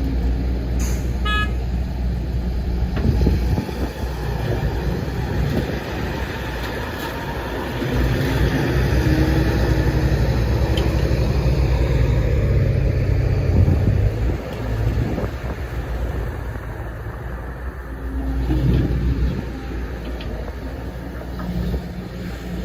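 Case 145D zero-swing excavator's diesel engine running under load, louder and heavier for several seconds in the middle. A short high beep sounds about a second in.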